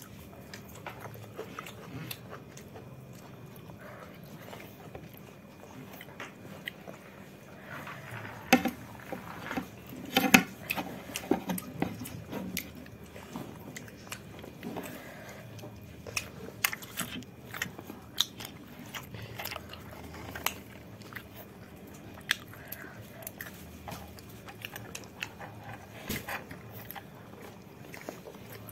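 A person chewing and eating a meal by hand, close to the microphone: scattered wet mouth clicks and smacks, with a few louder ones about eight and ten seconds in.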